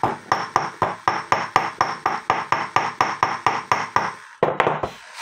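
A small hammer rapidly tapping a bent steel wire against a metal block to straighten it: even, ringing metallic taps, about four or five a second, stopping about four seconds in after a few last taps.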